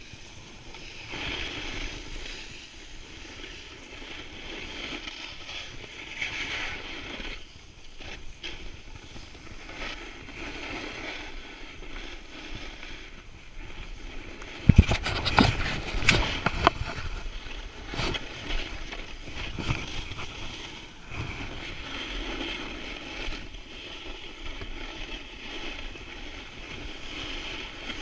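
Skis sliding and scraping over packed snow in a steady hiss, swelling and fading every few seconds, mixed with wind noise on the microphone. About halfway through comes a short run of sharp knocks and thumps.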